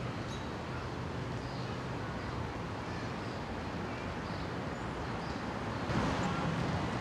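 Steady low rumble of distant city traffic, with faint, short high chirps of small birds scattered through; the rumble grows louder about six seconds in.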